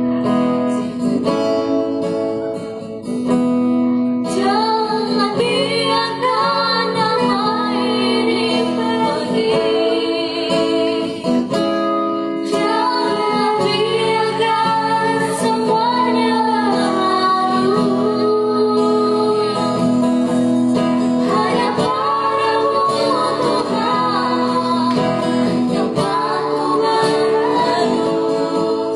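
Acoustic guitar playing alone at first, then a vocal duet, led by a female voice, comes in singing about four seconds in, with the guitar accompanying.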